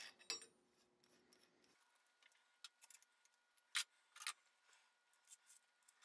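Near silence with a few faint, sharp metallic clicks: small steel latch parts (a bolt, the keys and the center pipe) knocking together as they are fitted by hand. One click comes about a third of a second in, the rest a little past the middle.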